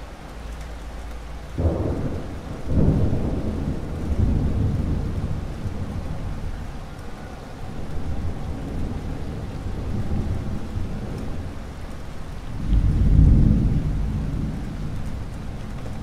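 Thunder rumbling over steady rain. A sudden clap comes about a second and a half in and a second one about a second later, then the rumble rolls on in swells, loudest near the end.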